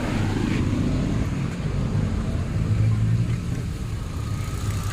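Hyundai Accent engine idling steadily. The multiple-misfire fault is fixed by an ECU repair, and the engine no longer shakes.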